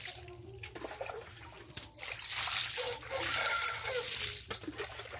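Water poured from a small plastic bucket over a dog being bathed, splashing off its back onto wet ground. The pouring and splashing are loudest from about two seconds in until near the end.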